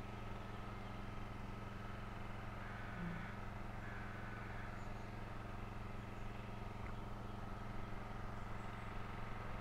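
Quiet outdoor background: a steady low hum and hiss, with two faint, short bird calls about three and four seconds in.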